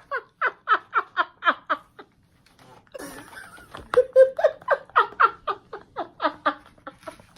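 A woman laughing hard in rapid, evenly spaced bursts, breaking off briefly about two seconds in and then laughing on again.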